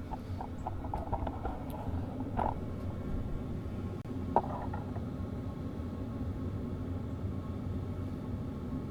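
Portable toolbox diesel air heater running steadily as it warms up, its blower moving a lot of air with a continuous low hum. A couple of brief faint clicks come through, about two and a half and four and a half seconds in.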